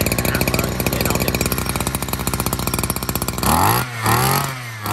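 Maruyama BC20C two-stroke brush-cutter engine running at idle with a fast, even putter, then revved up and back down twice near the end, with a third rev starting as it ends.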